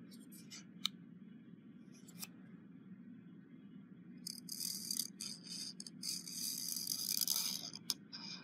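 A pen drawing a line on paper along the edge of a paper strip: a few faint clicks, then from about four seconds in a scratchy stroking of the pen tip on paper for about three seconds.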